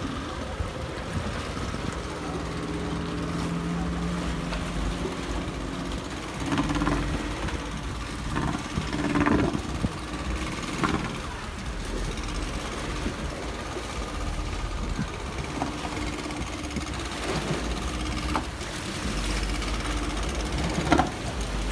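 Speedboat outboard motors running at low speed, a steady engine hum whose pitch shifts now and then, with a few short knocks and clatters.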